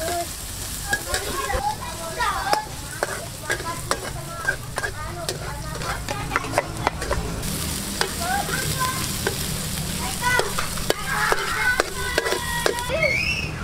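Sliced shallots sizzling in hot oil in a wok while a metal spatula stirs them, scraping and clicking repeatedly against the pan.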